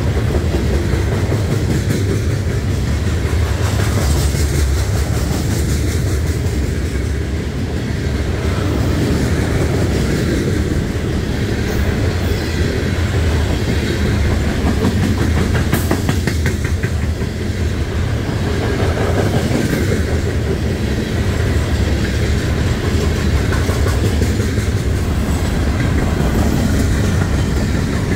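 Long freight train's cars rolling past close by: a loud, steady rumble of steel wheels on rail, with clickety-clack from the wheels over the track.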